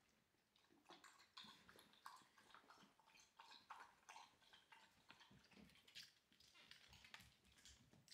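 A dog lapping water: faint, irregular wet clicks and smacks.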